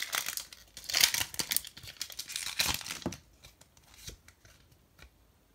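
A foil Pokémon TCG booster pack wrapper being torn open and crinkling, in several rough bursts over the first three seconds. A few faint clicks follow as it dies away.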